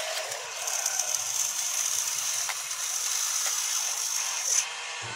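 RC excavator's electric gear motors running with a rattling, ratchet-like grind as the boom and bucket lower into the dirt. A high whine sets in about a second in and cuts off suddenly near the end.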